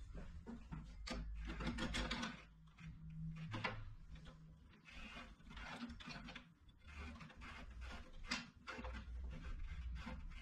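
Hand handling on the upper blade guide of a Makita LB1200F bandsaw: the guide-post knob being turned and the post shifted, giving scattered clicks, knocks and rubs of metal and plastic parts.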